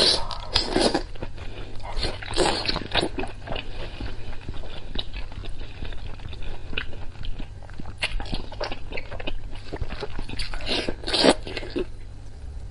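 Close-up eating sounds of someone sucking in and biting thick, oily braised intestines, with wet slurps and chewing. There are louder bites and slurps near the start, a couple of seconds in, and again near the end.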